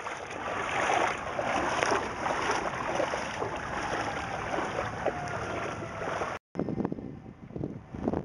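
Legs wading through knee-deep floodwater, water sloshing and splashing steadily. It breaks off abruptly about six seconds in and comes back quieter and more broken.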